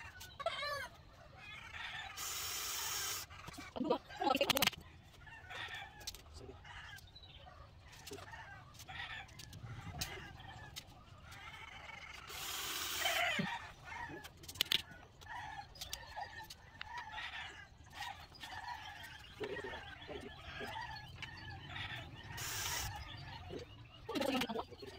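Chickens clucking with a rooster crowing, over which a cordless drill runs in three short bursts of about a second each as it drives into bamboo slats. A few sharp knocks come about four seconds in.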